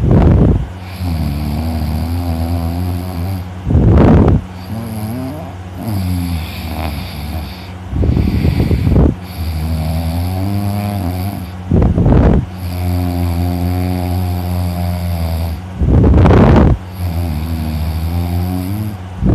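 A person snoring heavily in deep sleep, with a loud snore about every four seconds.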